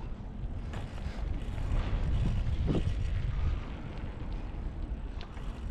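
Wind buffeting the camera microphone on a moving bicycle: a fluctuating low rumble.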